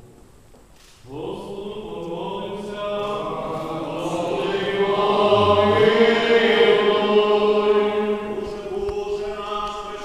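A choir singing a church chant in harmony. It comes in about a second in after a short hush, holding long, steady notes, and swells to its loudest around the middle.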